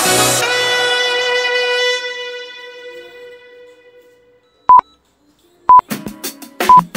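Background music ends on a held chord that fades away over about four seconds, followed by three short electronic countdown beeps of the same pitch, one a second, marking the last seconds of an exercise interval. New music with drum hits starts up between the second and third beep.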